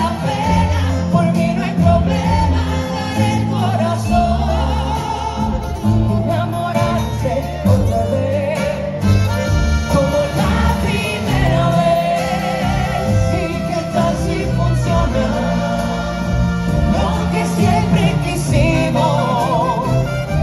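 Mariachi band playing live, with violins, trumpets and guitars over a bass line, and a woman singing over it. Heard from the audience in a large hall.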